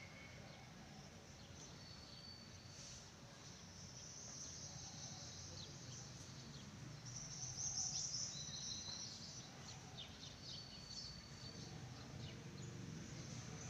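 Faint high-pitched chirping and short trills in the background, loudest about eight seconds in, over a low steady hum.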